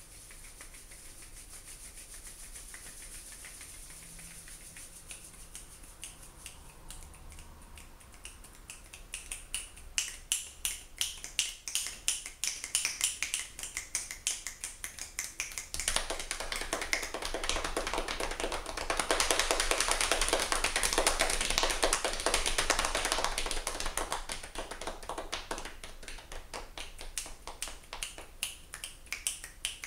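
Two people making a rainstorm with their hands: palms rubbing together give a soft steady hiss, finger snaps join in from about eight seconds in, and these build into a dense, loud patter of hand slaps in the middle before thinning back to scattered snaps near the end.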